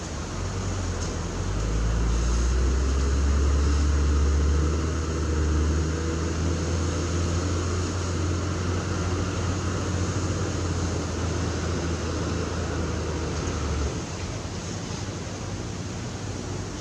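Diesel engine of a piece of heavy earthmoving equipment running with a deep, steady hum. The hum swells over the first couple of seconds and drops away suddenly about fourteen seconds in.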